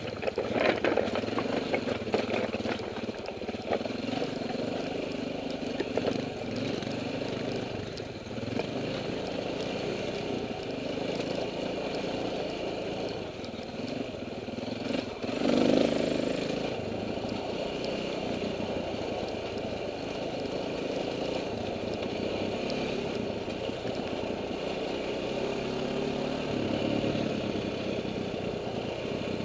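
KTM enduro dirt bike engine running at low revs on a downhill trail, heard from the rider's helmet, with rocks and the bike clattering over the rocky ground in the first few seconds. About halfway through there is a short, louder surge.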